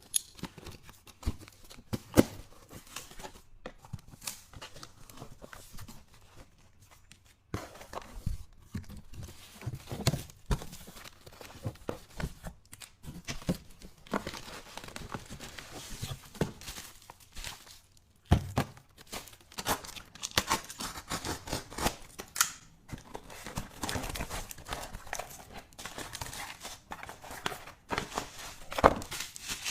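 Packaging being handled and opened by hand: plastic crinkling and tearing, with scattered sharp clicks and taps of small items being picked up and set down, busier in the second half.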